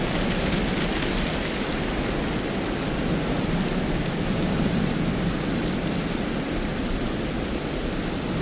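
Wind blowing with sleet falling, a steady rushing noise that swells and eases slightly, with a few faint ticks.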